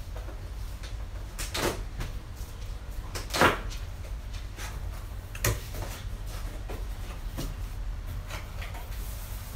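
Large cardboard box being handled and opened: a few short scrapes and rustles of cardboard flaps, the loudest about three and a half seconds in, and a sharp knock about five and a half seconds in, over a steady low hum.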